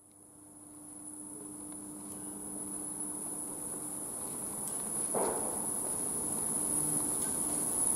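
Electric trains at a station platform: a steady high-pitched whine and a low hum from the electric unit standing at the platform, growing louder as another electric unit comes in. A short squeak about five seconds in.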